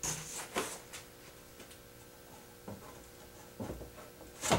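A thin wooden board being handled and laid onto a glue-covered board on a workbench, with soft rustling and light knocks as it is slid into line, and one sharper knock near the end.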